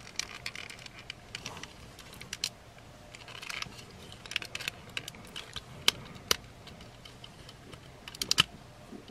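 Hard plastic parts of a transforming robot toy figure clicking and rattling as hands unpeg and shift its pieces. The clicks are scattered, with two louder snaps about six seconds in and a quick cluster of clicks near the end.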